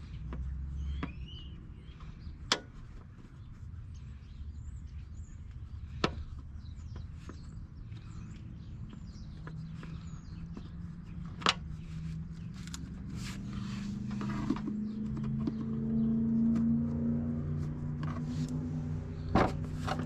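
Sharp knocks from hands-on work on a riding mower's deck during a belt change, four of them several seconds apart. Underneath is a low hum, joined about halfway through by a steady drone that grows louder.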